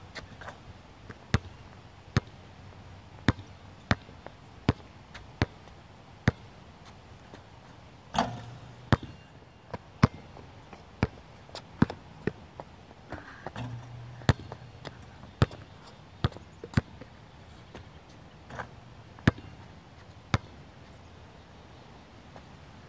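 Basketball bouncing on an outdoor court: single sharp bounces at irregular intervals, about one a second, with a longer rattling hit about eight seconds in.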